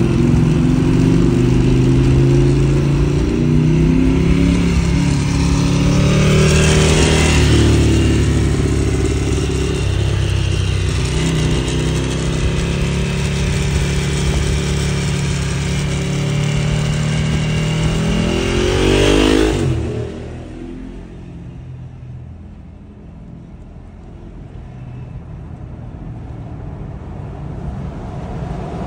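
Ducati 1098R's L-twin engine through a Termignoni 70 mm racing full exhaust, running loud alongside with a couple of short revs, around seven and nineteen seconds in. About twenty seconds in it drops off sharply, leaving quieter road and traffic noise heard from inside the car.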